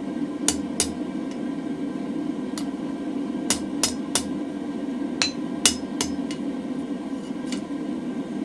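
Light hand-hammer taps on a hot mild steel bar on an anvil, about ten sharp ringing strikes in small groups with pauses between, straightening the bar.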